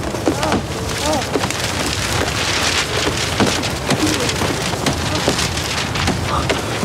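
Heavy rain falling, a steady hiss thick with the patter of drops, with a few short vocal sounds in the first half.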